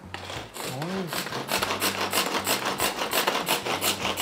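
Pull-cord manual food chopper worked with quick repeated yanks of its string, the spinning blades whirring and rasping through the food in the bowl. The strokes come fast and even, starting about half a second in.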